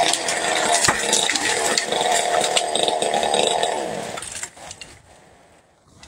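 Chainsaw running at high revs, then the revs drop and the sound falls away about four and a half seconds in.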